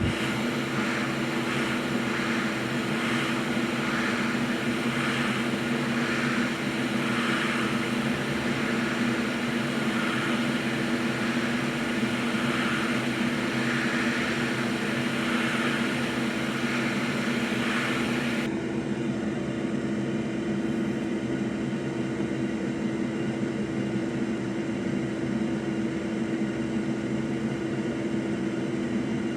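Hot air rework station blowing steadily, a motor hum under an airy hiss, as solder is reflowed to seat a new PS5 HDMI port. About two-thirds of the way through, the hiss drops away suddenly while the hum continues.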